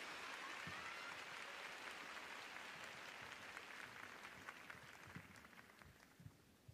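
Large arena crowd applauding, the applause thinning into scattered separate claps and dying away toward the end.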